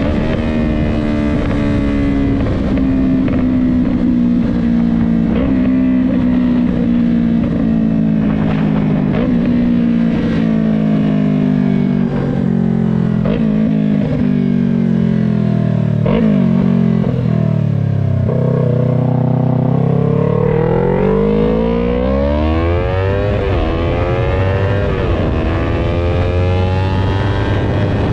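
Yamaha R3's 321 cc parallel-twin engine running through a Jeskap full mini GP exhaust while riding. The revs fall slowly for the first two-thirds as the bike slows, then climb steeply under acceleration, dipping briefly at gear changes near the end.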